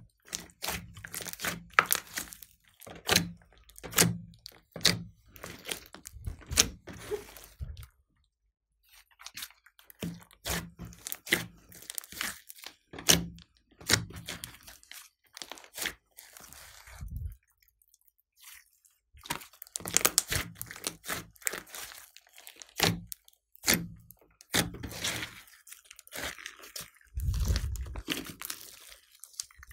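A large batch of slime mixed with clay being squeezed and kneaded by hand: a run of irregular sharp clicks and pops with wet squelches, as air pockets burst in the sticky mass. It pauses briefly twice.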